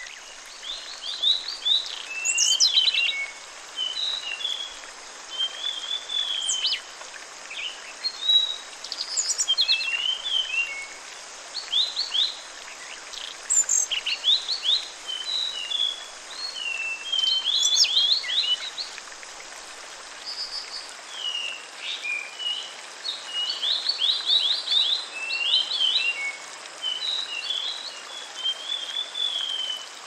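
Songbirds chirping and singing in quick, varied phrases throughout, over a steady rush of falling water.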